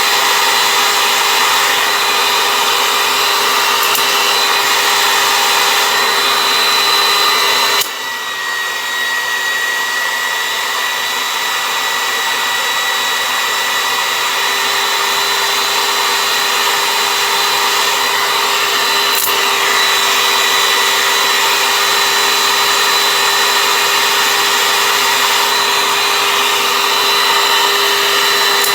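Bagged Oreck vacuum cleaner's motor running with a steady whine. About eight seconds in there is a sharp click and the sound dips, then climbs back to full over a few seconds.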